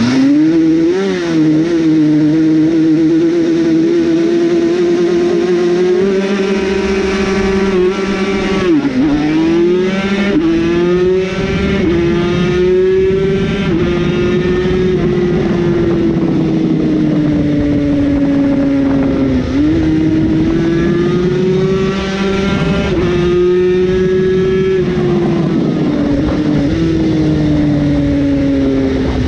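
Yamaha TZ250 two-stroke V-twin race engine at racing revs. The engine note is held high, drops sharply twice, about nine and nineteen seconds in, and climbs back each time.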